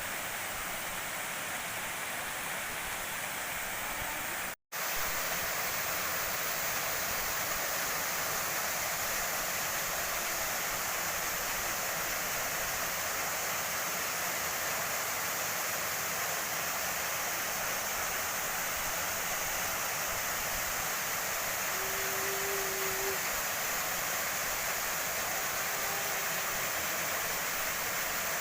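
Waterfall rushing, a steady, even roar of falling water that cuts out for an instant about four and a half seconds in.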